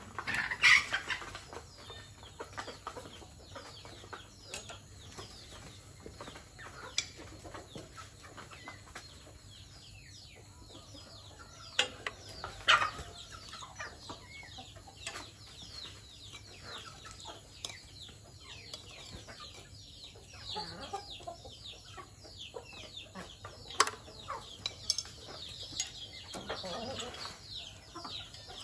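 Domestic chickens clucking as they forage, with a flurry of wing-flapping right at the start and a few sharp knocks about halfway through and again near the end.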